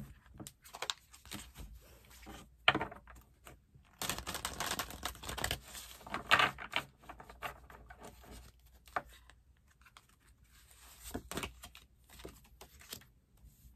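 A deck of tarot cards being shuffled by hand: uneven runs of soft flicks and rustles of card against card, with short pauses between.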